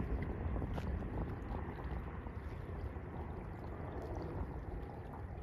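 Wind buffeting the microphone: a steady, low rumbling noise.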